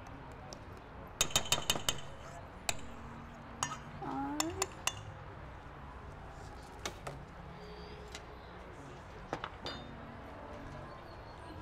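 A metal utensil clinking and tapping against a metal mixing bowl while food is mixed. It starts with a quick run of about five sharp clinks about a second in, followed by scattered single clinks and small clusters.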